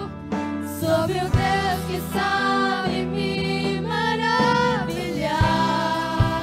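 Live Portuguese gospel worship song: a female lead singer and backing singers singing together over keyboard, electric guitar and bass guitar, with a few drum hits.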